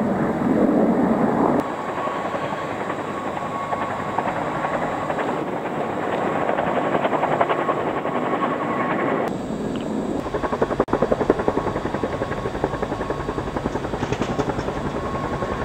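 Distant Mi-10 flying-crane helicopter in flight with an underslung load: its twin turboshaft engines and large five-blade main rotor make a steady running noise. About two-thirds of the way in, the sound takes on a rapid rhythmic beat from the rotor blades.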